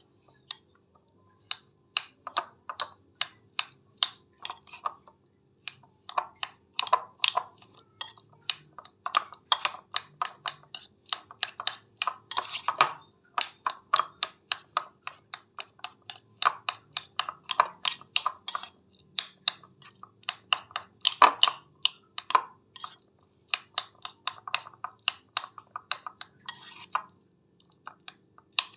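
Spoon or fork clinking and scraping against a bowl in quick repeated strokes, several clicks a second, as avocado flesh is mashed; brief pauses about a second in and near six seconds in.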